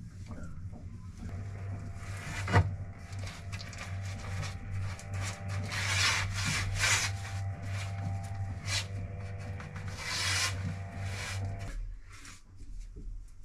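A paintbrush scrubbing back and forth over a boat locker's panels in repeated scratchy strokes, with a sharp knock about two and a half seconds in. A steady low hum with a few higher steady tones runs under it, stopping shortly before the end.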